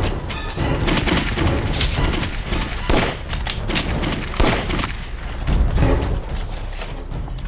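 Battle gunfire: many shots in quick, irregular succession, overlapping into a continuous exchange of fire.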